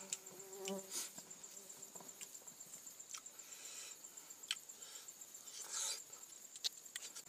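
A steady high-pitched insect trill pulsing rapidly, with close, sharp lip smacks and chewing clicks from someone eating with his fingers.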